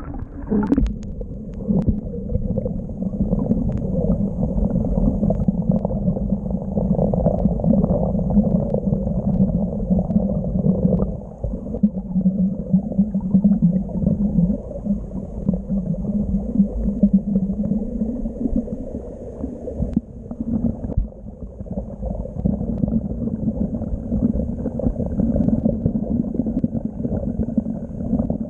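River water rushing and gurgling around a swamped waterproof GoPro action camera, heard muffled and deep with the treble cut off. The camera goes under about half a second in, and there are a few knocks against it soon after.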